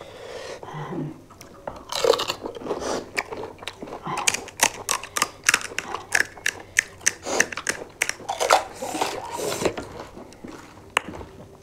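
Crisp panipuri shells cracking and crunching as they are eaten, with wet chewing. A dense run of sharp crunches comes in the middle.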